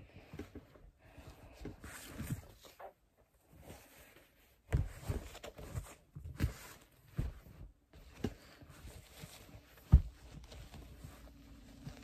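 Cloth rustling and irregular soft bumps from handling a reborn doll while a onesie is pulled onto it, with one sharp knock about ten seconds in.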